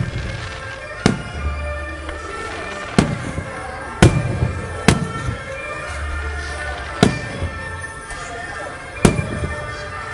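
Aerial fireworks shells bursting overhead: about six sharp booms, one to two seconds apart, each trailing off in an echo. Music plays steadily underneath.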